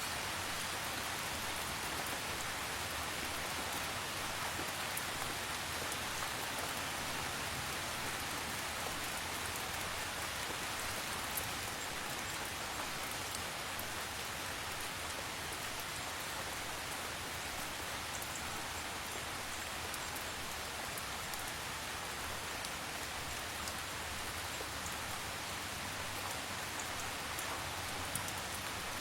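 Gentle, steady rain falling: an even hiss of drops on surfaces with fine pattering ticks and no change in strength.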